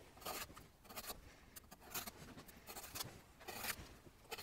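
Knife blade scratching in short, quick strokes, about two a second, as it scores along the ribs of a wild boar rib section on a plastic cutting board.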